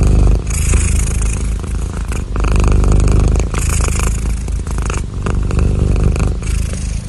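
Pet cat snoring loudly, a continuous rattling rumble that swells and eases with its breathing.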